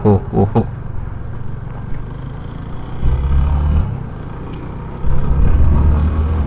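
Yamaha FZ25's single-cylinder engine running and wind noise while riding, heard from the bike's camera, with a louder low rumble about three seconds in and again from about five seconds.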